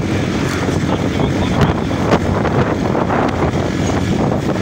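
Steady rumble of a moving train with wind buffeting the microphone, and a couple of sharp knocks about two seconds in.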